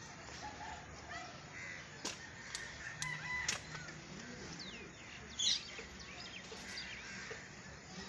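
Alexandrine parakeets making soft chattering calls: a few sharp clicks, then short squawks that sweep in pitch, the loudest about halfway through.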